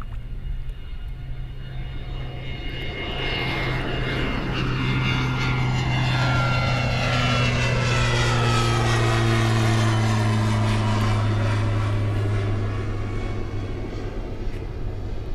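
A propeller airplane passing over, its steady low drone swelling to its loudest about two-thirds of the way through and then fading, with a sweeping whoosh as it goes by.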